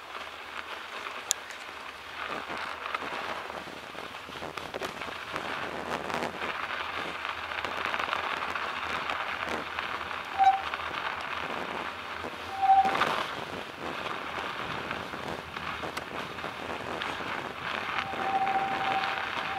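Bicycle tyres rolling and crunching over a snow-covered track, a steady rough hiss. A short high squeak sounds twice near the middle, and again for longer near the end.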